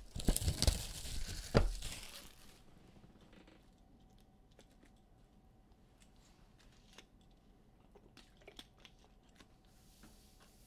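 Plastic wrapping on a trading-card box or pack being torn and crinkled open, loud for about the first two and a half seconds with a sharp rip near the end of it. After that, only faint clicks and rustles of handling.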